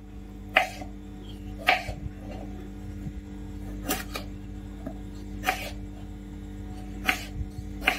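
Kitchen knife slicing through tomatoes and knocking on a wooden chopping board, a sharp knock every second or two, over a steady low hum.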